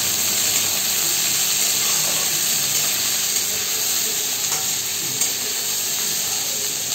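Chopped onion, green chili and capsicum sizzling steadily in hot oil in a kadhai, stirred with a steel spatula, as the onion is sautéed toward light brown.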